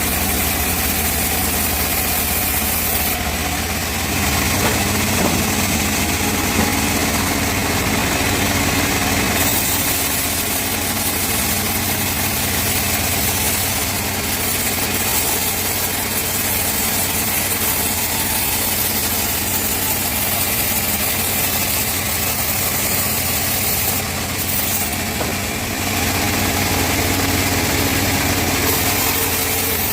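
Band sawmill cutting teak logs, its drive engine running steadily under a broad sawing hiss that shifts slightly a few times.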